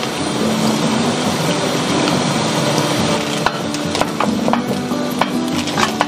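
Water boiling hard in a saucepan on a portable gas cartridge stove, a steady bubbling hiss, with the pot lid lifted off and a few sharp clinks and taps in the second half.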